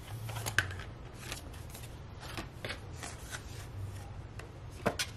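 Cash envelopes and paper bills being handled: light rustling with scattered small clicks, and a sharper click about half a second in and another near the end.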